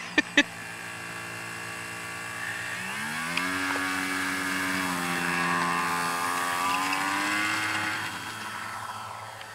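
Electric motor of a scratch-built Short Mussel model aircraft running with a loose bearing, which makes it sound like a four-stroke engine. Its pitch climbs about three seconds in, holds, then drops back near the end.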